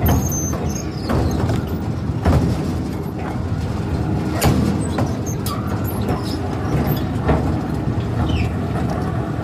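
Twin-shaft shredder running with a heavy, steady drone as its hooked cutters grind through a solid block. Loud cracks and crunches break in every second or two, the sharpest about two and a half and four and a half seconds in.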